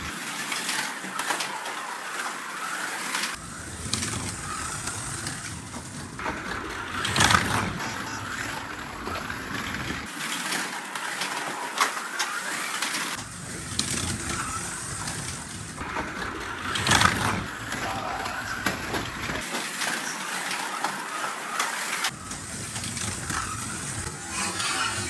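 1:32 slot cars running on a plastic track: their small electric motors whine and their wheels and guides rattle on the lanes. There are sharp louder moments about seven and seventeen seconds in.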